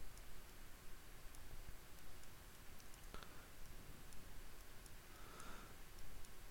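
Sparse computer mouse clicks over faint room noise, with one sharper click about three seconds in.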